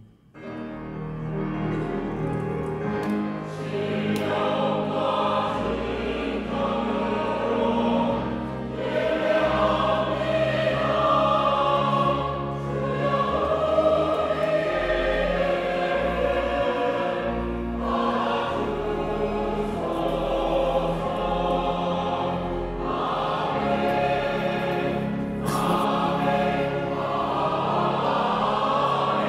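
A choir singing a slow Korean praise song over band accompaniment with low bass notes.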